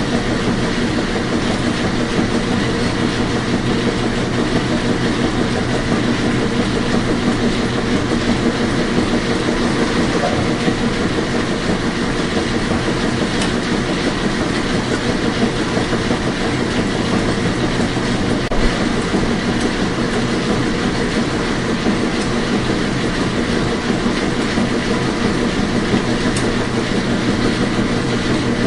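Washing machine running: a loud, steady mechanical hum and rumble that keeps on without a break.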